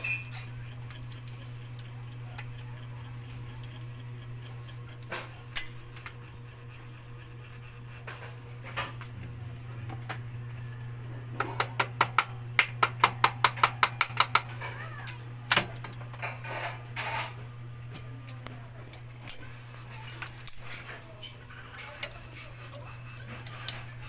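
Juki sewing machine's electric motor humming steadily, with scattered metallic clinks and a quick run of about a dozen clicks near the middle.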